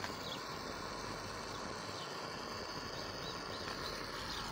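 Quiet outdoor background: a steady faint hiss with a few faint bird chirps.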